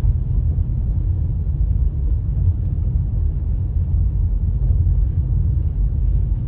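Steady low road rumble heard from inside a moving car, from tyres and engine as the car rolls over wet, cracked asphalt.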